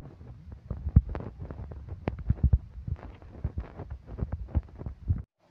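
Irregular low thumps and knocks with short clicks, typical of a handheld phone's microphone being rubbed and knocked as the camera moves; the sound cuts off suddenly near the end.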